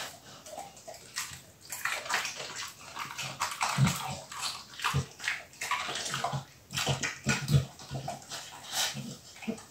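Staffordshire bull terrier eating cucumber from a stainless steel bowl: irregular wet licking and chewing sounds.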